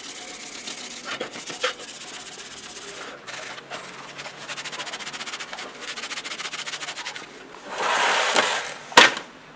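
Plastic jigsaw housing and parts being scrubbed by hand in a tray of soapy water, a quick run of rubbing strokes with small splashes. Near the end comes a louder scraping rush as the plastic tray is moved, then a single sharp knock.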